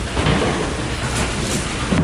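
SPMC inline six-corner tray forming machine running, a steady mechanical clatter with heavier knocks shortly after the start and again at the end.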